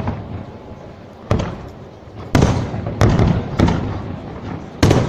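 Fireworks bursting overhead: about five loud bangs, at irregular intervals a half to one and a half seconds apart, each trailing off in an echo.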